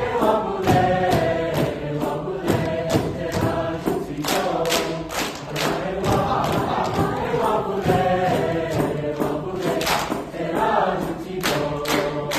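School choir singing with accompaniment and a steady percussive beat, about two hits a second.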